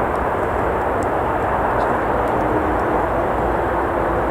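Steady rumble of traffic on a nearby road, an even noisy drone with no breaks. A few faint crackles from the campfire come through on top.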